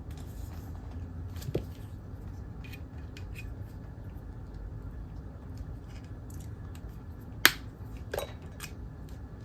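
Wire snips cutting cables off a circuit board: scattered small clicks and a few sharp snips, the loudest about seven and a half seconds in, over a low steady hum.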